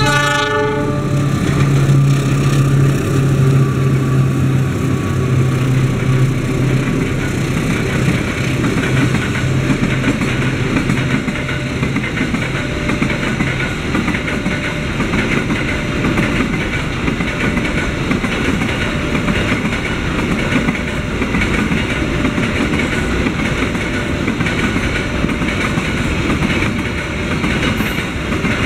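CC 203 diesel-electric locomotive passing, its horn dropping in pitch in the first second, then its engine drone until about halfway, followed by a long train of flat wagons rolling past with wheels clacking and rumbling on the rails.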